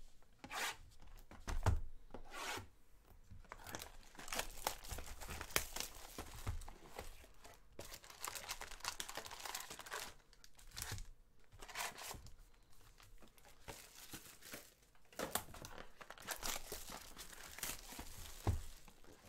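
A sealed trading-card box being torn open and its wrapped card packs handled: irregular tearing, rustling and crinkling of wrapper and cardboard, with a couple of sharper knocks, one near the start and one near the end.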